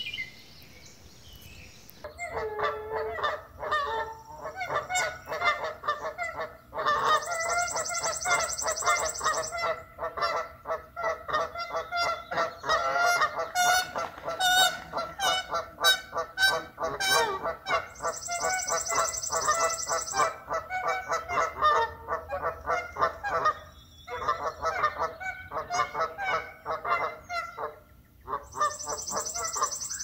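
Canada geese honking: a dense run of rapid, repeated honks that starts about two seconds in, with a couple of brief pauses near the end.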